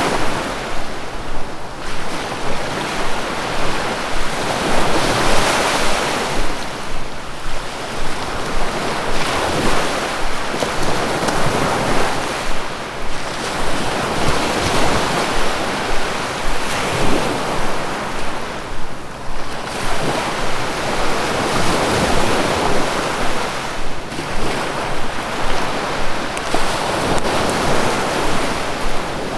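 Sea waves breaking continuously on a shore, the surf swelling and easing every few seconds.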